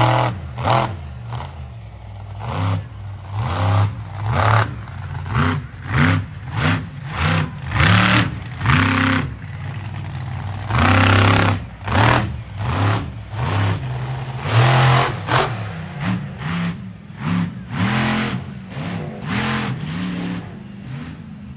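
Monster truck engine revving in repeated short throttle blips, its pitch rising and falling about once a second, with louder bursts of exhaust noise on the harder revs.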